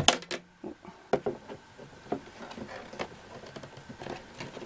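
Hard plastic parts of a Bluey Family Home toy playset knocking and clicking as a panel is worked onto the house. A sharp click right at the start, then a few scattered light knocks.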